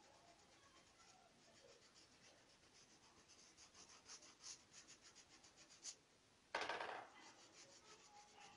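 Faint, rapid scratching of a paintbrush scrubbed back and forth over fabric, several strokes a second, with a louder scrape lasting about half a second around two-thirds of the way in.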